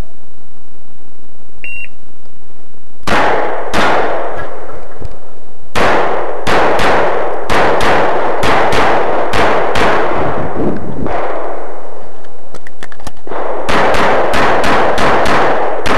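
Handgun shots fired in fast strings on a practical-shooting stage. A short electronic shot-timer beep sounds about two seconds in. Then come two shots, a brief pause, a rapid string of about a dozen shots, a pause of about two seconds, and another quick string of about eight shots.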